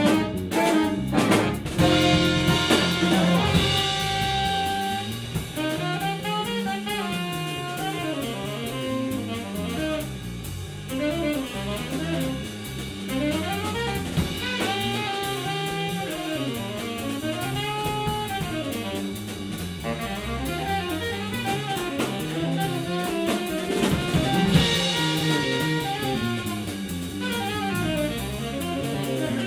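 Jazz band playing an instrumental number, with a melody line over a bass line that steps steadily up and down. A few sharp hits open it.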